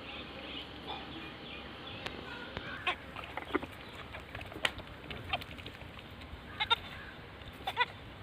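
Goats bleating, with a few short calls late on, over a steady background hiss and scattered faint clicks.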